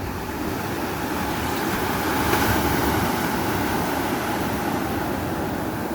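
Sea surf washing up on the shore: a rushing noise that swells once, peaking about halfway through, then eases off.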